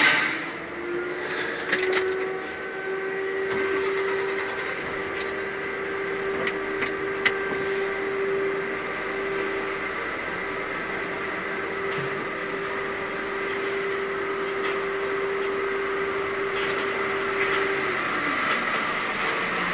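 Lorry cab interior with the engine running: a steady hum and whine that climbs slightly in the first couple of seconds, holds, then drops away near the end, with a few light clicks.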